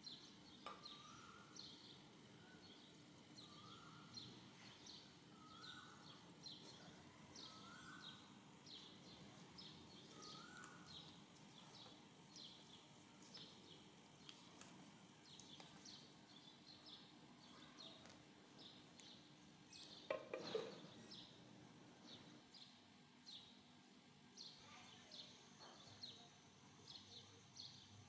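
Faint birdsong: small birds chirping repeatedly, with a short rising whistled note about every one and a half seconds through the first ten seconds. A single brief knock sounds about twenty seconds in.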